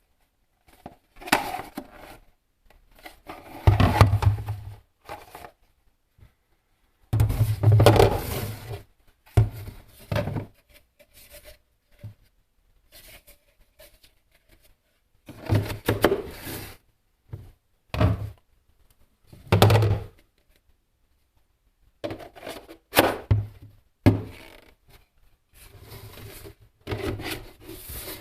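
Irregular thunks, scrapes and rubbing of hard objects being handled and moved against each other, in short bursts with silent gaps between.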